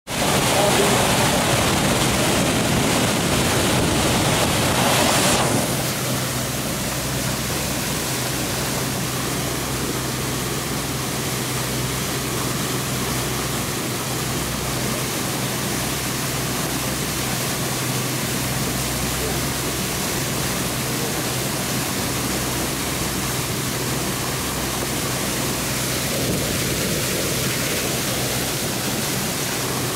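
Water rushing and churning alongside the hull of a moving riverboat, over a steady low engine hum. The rush is louder for about the first five seconds, then settles a little.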